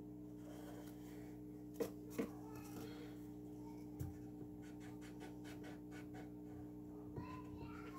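Quiet drawing-desk sounds: a couple of sharp clicks as pencils are handled, a knock, then a quick run of light pencil strokes on paper, over a steady low electrical hum.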